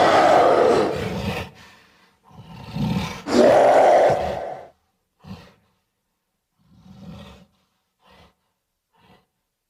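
Ape-monster roar sound effects: two long, loud roars, the second starting about two and a half seconds in, followed by four short, faint grunts.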